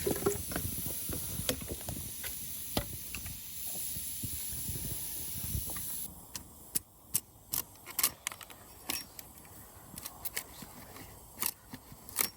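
Wet firewood hissing and steaming in a small camp fire as the water boils out of it. About six seconds in the hiss cuts off abruptly, and scattered sharp ticks and pops follow.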